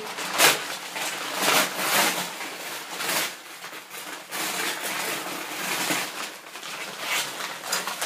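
Parcel packaging of paper and plastic rustling and tearing as it is opened by hand, in irregular crackles.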